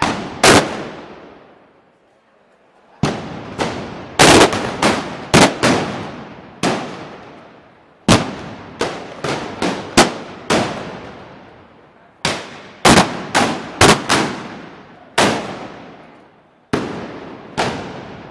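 A rapid, irregular string of loud explosive bangs, about thirty in all, each sharp crack trailing off in an echo. The bangs sometimes come in quick clusters and sometimes spaced a second or more apart, with a pause of about two seconds near the start.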